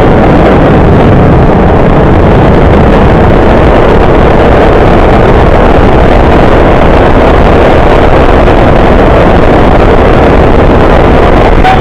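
Go-kart engine running flat out, loud and steady with no let-up, mixed with wind buffeting the microphone.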